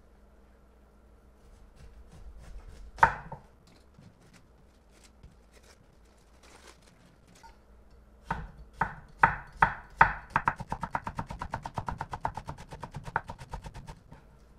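Kitchen knife cutting napa cabbage on a wooden cutting board: one loud crunching cut about three seconds in, a few firm chops around eight to ten seconds, then a quick even run of thin slicing strokes, about five a second.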